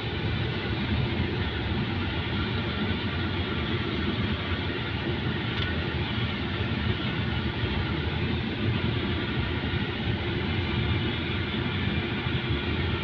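Car driving slowly, heard from inside the cabin: steady engine and road noise with no distinct events.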